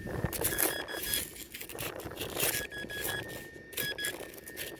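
Metal detector giving short high-pitched beeps in quick runs over a faint steady tone, signalling a target that reads erratically. Scraping and rustling noises run throughout.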